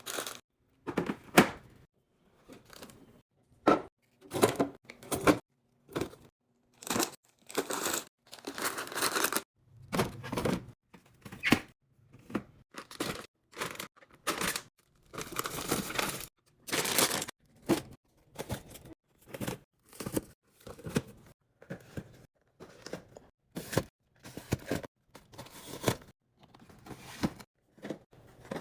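Food packaging and containers handled during fridge restocking: plastic crinkling and tearing, with knocks as items are set down, in irregular short bursts and a few longer rustles.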